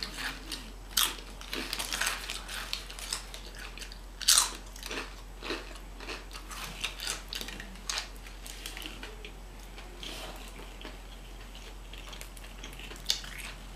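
Close-up eating sounds: a person crunching and chewing tortilla-style chips, a rapid run of sharp crunches for about the first ten seconds, then softer, sparser chewing.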